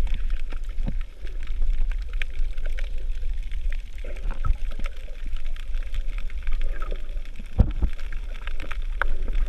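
Muffled underwater sound of moving water heard from a submerged action camera: a deep, steady wash with scattered small clicks and gurgles, and a few stronger knocks near the end.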